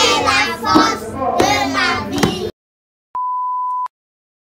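Young children singing together in French. The singing cuts off abruptly into dead silence, broken by one steady, high test-tone beep of just under a second.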